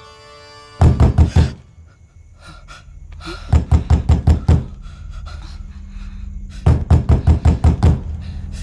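Three quick runs of sharp percussive knocks, each about six to eight strikes fast in succession, with pauses of about two seconds between runs, over a faint low hum.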